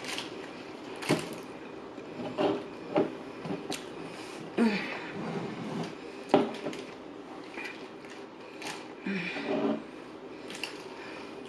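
Scattered taps, clicks and rustles of fast food, wrappers and containers being handled at a table: about a dozen short knocks spread through, none of them very loud.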